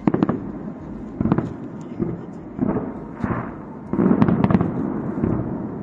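Aerial fireworks bursting: irregular sharp bangs, a few a second, with a quick cluster of several about four seconds in.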